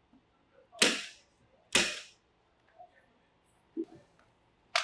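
Hand-held staple gun firing staples through an airtight membrane into a timber stud: two loud, sharp shots about a second apart, then a fainter knock and one more short, sharp shot near the end.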